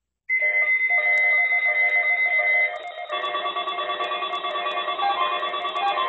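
Several weather alert radios sounding their alert tones together on receiving a National Weather Service required weekly test. A steady high beep comes first. From about three seconds in it gives way to a denser mix of overlapping pulsing alert tones.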